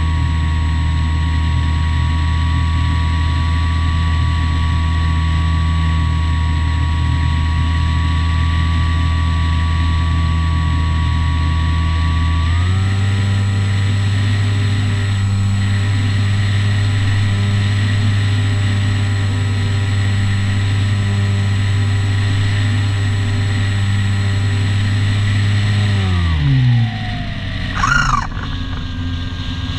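Electric motor and propeller of a Skywalker 1900mm FPV plane running at a steady pitch. About halfway through the throttle is raised and the pitch steps up, then near the end the motor winds down and stops, followed by a short rough burst of noise.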